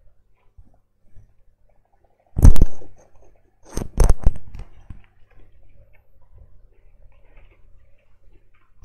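A short loud thump about two and a half seconds in, then a quick cluster of sharp clicks and knocks about a second later, over a faint steady hum.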